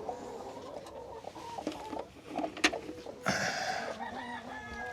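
Hens clucking in short, repeated calls at the nest boxes during egg collection, with a sharp click about halfway through and a short burst of noise soon after.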